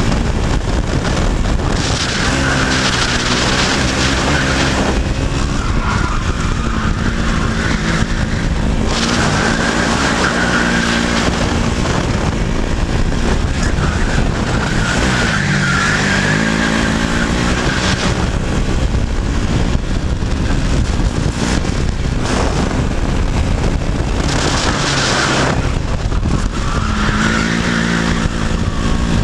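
Racing go-kart's two-stroke engine running hard at speed, its pitch rising as it accelerates and dropping as it slows for corners, several times over.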